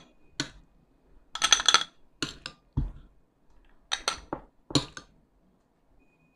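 Metal spoon clinking against a drinking glass and ice cubes as cubes of coffee jelly are spooned in over the ice. A scatter of separate clinks and taps with quiet gaps between them, busiest about a second and a half in.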